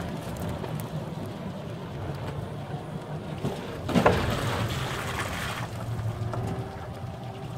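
A vehicle driving slowly: steady low engine and road rumble with wind noise on the microphone. A brief louder sound with a falling pitch comes about four seconds in.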